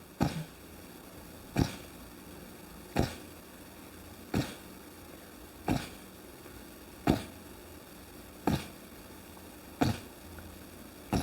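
A person blowing short, sharp bursts of air out through the nose, about one every second and a half, nine in a row. It is a soft-palate exercise: the soft palate is tensed, then the air is let go abruptly through the nose, like a snort of laughter.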